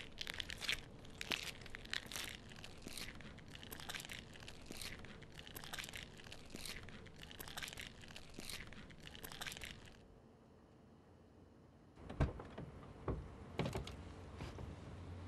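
Irregular crunching footsteps for about ten seconds. After a short pause, a car door opens with a few low clunks near the end.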